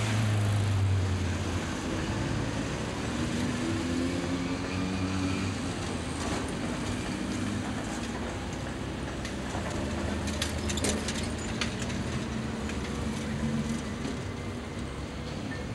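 City street traffic: a motor vehicle passes close by at the start, followed by a steady engine hum and traffic noise. About ten seconds in there are a few sharp clicks.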